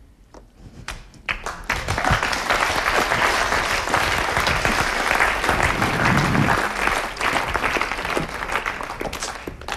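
Studio audience applauding: scattered claps about a second in swell into steady applause, which thins out near the end.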